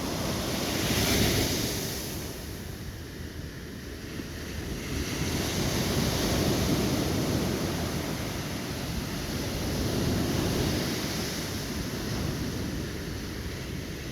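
Sea waves breaking and washing on the shore, swelling and ebbing with three surges, mixed with wind buffeting the microphone.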